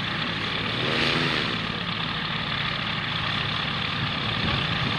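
Ultralight aircraft's pusher engine and propeller idling on the ground, a steady rumble that swells briefly about a second in.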